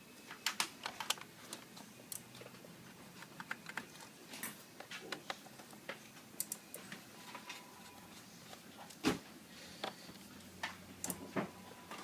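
Small irregular clicks and taps of a thin screwdriver working screws out of a laptop's aluminium bottom case, with one louder knock about nine seconds in.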